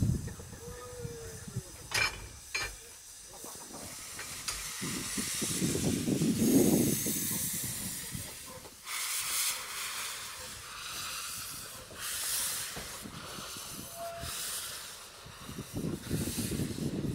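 Steam locomotive hissing in uneven bursts of high steam noise, with a low rumble now and then and a sharp knock about two seconds in.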